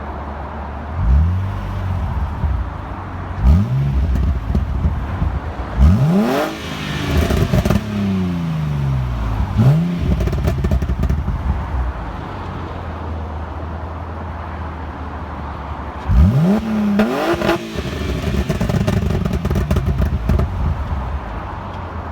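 BMW M54B30 straight-six idling and being blipped, with two hard revs. On the second it holds briefly at the launch-control rev limit. After each big rev the revs fall back to idle with exhaust pops and crackles from the MS43 'pop mod' tune.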